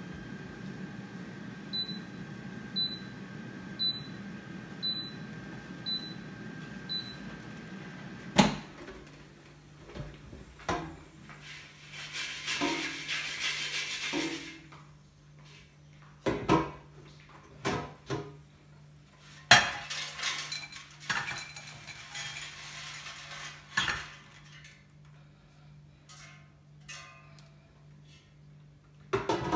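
Milex air fryer running with a steady fan hum, then six short high beeps about a second apart, typical of its timer ending the cooking cycle. About eight seconds in, the fan cuts off with a loud click. Irregular clatter and clinks of the basket and dishes follow.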